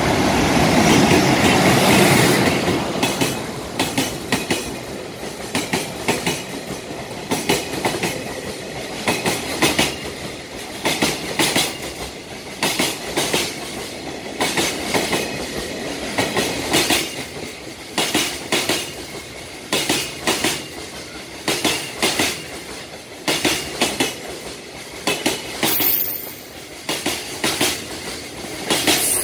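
JR Freight EH200 electric locomotive passing at speed, followed by a long train of container flatcars whose wheels click over the rail joints in regular clusters. The locomotive is loudest in the first two seconds or so. A brief high wheel squeal comes near the end.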